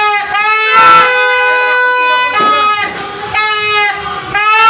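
Horns blown in repeated blasts for New Year's noise-making: loud, buzzy held notes, several overlapping, each lasting half a second to a second or so.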